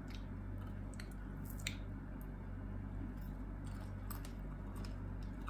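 Mouth sounds of someone chewing small, chewy strawberry Millions sweets: faint, irregular wet clicks and squishes over a steady low hum.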